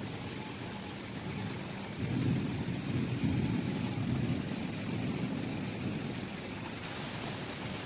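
Steady rain, with a low rumble of thunder that swells about two seconds in and fades over the next few seconds.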